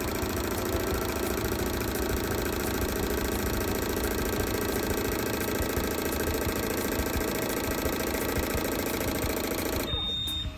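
Eight MerCruiser 8.1 fuel injectors firing rapidly on an ASNU injector flow bench, a steady fast mechanical chatter during a flow test after cleaning. It stops abruptly near the end with a short high beep.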